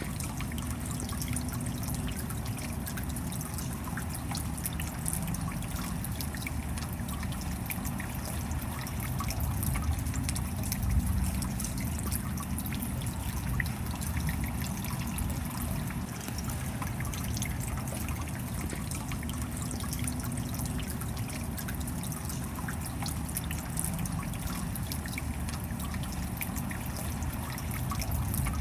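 Creek water rushing over rocks in a small rapid, heard close up: a steady splashing, bubbling wash with fine crackle.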